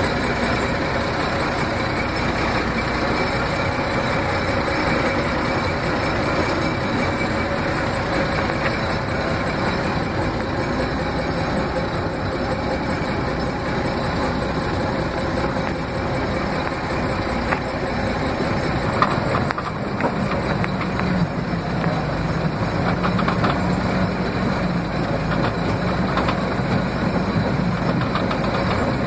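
Panzer 38(t) tank's engine running steadily, heard from on board the tank; its note shifts a little about two-thirds of the way through.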